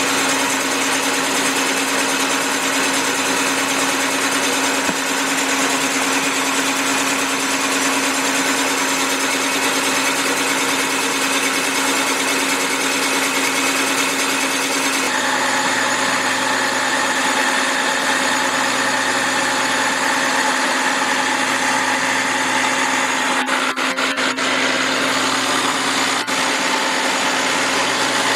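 SIP Hydroptic 8 jig borer running steadily, its boring bar feeding down to bore a cylinder of a cast-iron AMC/Jeep 258 engine block oversize. About halfway through the sound changes and a higher tone comes in, and a few sharp clicks come near the end.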